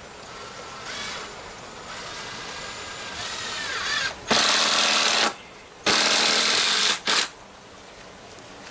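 Power drill running in two bursts of about a second each, then a short third burst, after some fainter work sounds.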